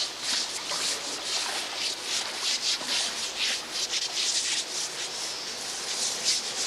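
Asian elephant's wet, rough hide being scrubbed by hand, a rasping rub repeated in irregular strokes about twice a second.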